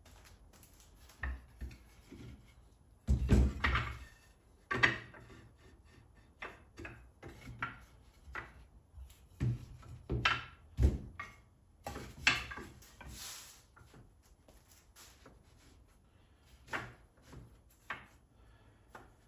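Cut wooden strips being set down and slid into place against each other: irregular clacks and knocks of wood on wood, with some scraping between them, loudest in a cluster about three seconds in.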